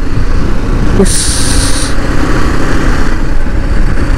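Motorcycle riding along a rough road, its engine running under heavy wind noise on the microphone. A short hiss, under a second long, comes about a second in.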